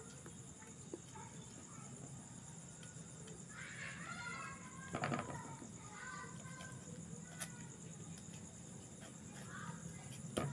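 Cheese being grated on a flat metal hand grater over a plastic bowl: faint scraping, with a few sharp knocks, the loudest about halfway and near the end. A steady high-pitched chirring of night insects runs underneath, with a few short chirping calls.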